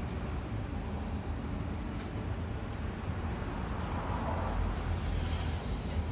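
Bus travelling: steady low engine and road rumble, with a faint click about two seconds in and a brief rise of higher-pitched noise around four to five seconds in.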